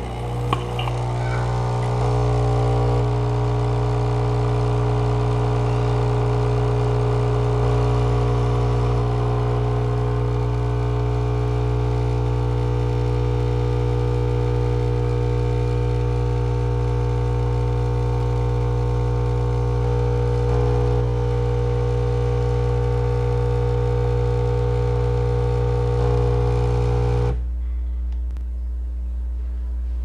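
Capsule espresso machine's pump buzzing steadily as it brews a shot. The buzz starts just after a click and cuts off suddenly near the end, when the shot is finished.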